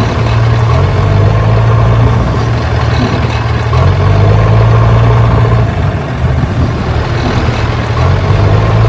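Tractor engine running steadily at idle: a loud, low, even drone that swells and eases slightly a few times.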